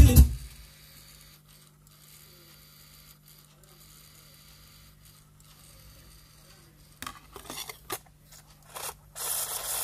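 Faint steady low hum, then from about seven seconds in a few short bursts of scraping and rubbing as a disc is handled and seated on a DVD player's spindle, the loudest near the end.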